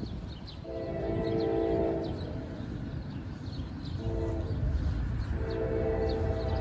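Locomotive's Nathan K5LA multi-chime air horn sounding for the crossing as the train approaches: a long blast, a short blast about four seconds in, and another long blast starting a little after five seconds. A low rumble of the approaching train builds beneath it in the second half.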